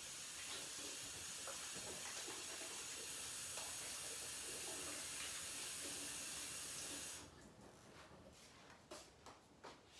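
Kitchen sink tap running steadily while hands are washed under it, shutting off about seven seconds in, followed by a few light knocks.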